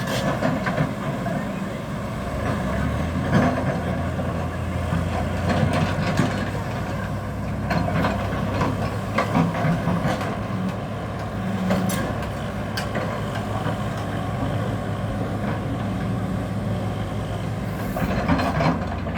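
Tata Hitachi EX200 excavator's diesel engine running steadily under load, with irregular metallic clanks and knocks from the bucket, boom linkage and tracks as it works the soil.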